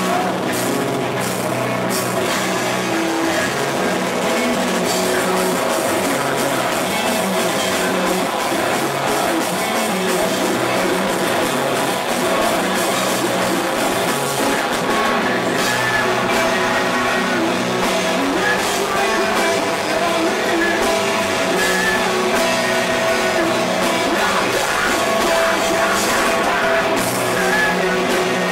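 Live metalcore band playing at full volume: distorted electric guitars, bass and a drum kit, with a vocalist on the microphone, in a dense wall of sound that never lets up.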